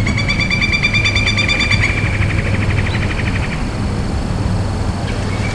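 Fishing reel being cranked on a retrieve: a rapid ticking whine that stops about three and a half seconds in and starts again near the end.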